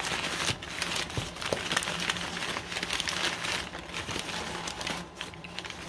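Newspaper wrapping being pulled apart by hand, crinkling and rustling in a dense run of crackles that eases off near the end.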